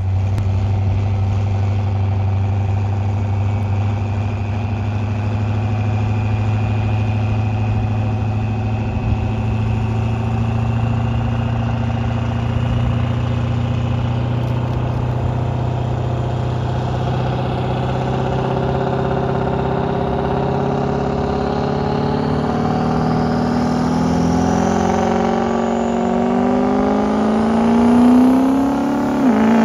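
Pro street diesel pickup truck's engine holding a steady high idle while hooked to the pulling sled, then revving higher and higher over the last third with a thin rising turbo whistle as it builds boost to launch the pull.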